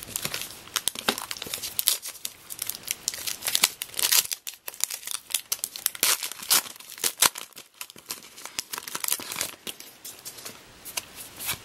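A Topps Heritage baseball card pack wrapper being torn open by hand, crinkling and tearing in a continuous run of small crackles.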